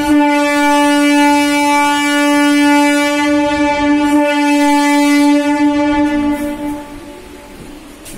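Electric MEMU train's horn sounding one long, loud blast of about seven seconds as the train moves, dipping slightly in pitch and fading out near the end.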